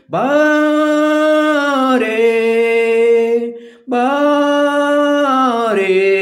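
A man singing a Kannada song unaccompanied, holding long drawn-out notes. Two long phrases, each stepping down in pitch partway, with a short breath between them a little before four seconds in.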